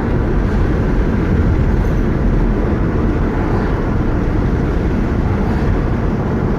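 Steady road and engine rumble heard from inside a moving car, unchanging throughout.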